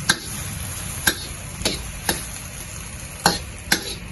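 Mushrooms and peanuts in a wok bubbling and sizzling as the oyster-sauce liquid cooks down, with a spatula striking and scraping the wok about six times at uneven intervals.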